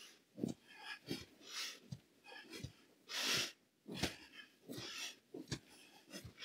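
A woman breathing hard in sharp, hissing exhales while doing mountain climbers, her feet thudding on a yoga mat about three times every two seconds. The longest exhale comes a little after three seconds in.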